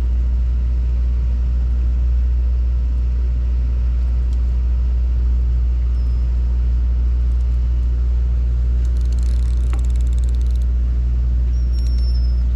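Sportfishing boat's engine running steadily at idle: a constant low hum.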